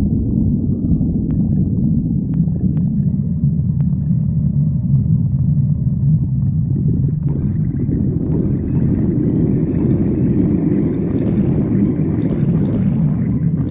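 A person's stomach growling: a continuous low rumble, joined about halfway through by a higher, brighter growl that carries on to the end.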